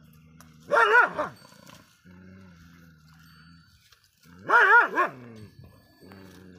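A dog barking twice, about four seconds apart; each bark is drawn out with a wavering pitch. A low, steady growl runs between the barks.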